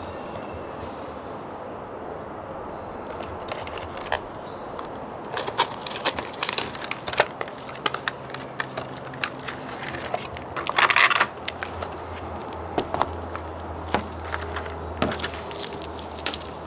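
Cardboard box and plastic packaging of a self-heating grass jelly kit handled and unpacked: scattered clicks, scrapes and crinkles of cardboard and plastic, with a louder rustling burst about two-thirds of the way through.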